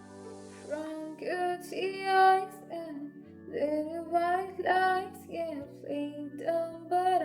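A young female voice singing a slow, sustained melody over a soft instrumental backing of held chords. The voice enters about a second in and rises to its loudest note a little after two seconds.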